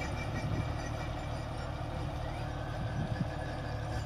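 John Deere 5204 tractor's diesel engine running steadily under load, driving a rear-mounted rotary tiller through soil. A low, even drone.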